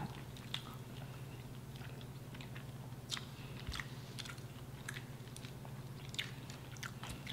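Chewing and biting into crunchy fried chicken wings close to the microphone: scattered small crackles and clicks over a steady low hum.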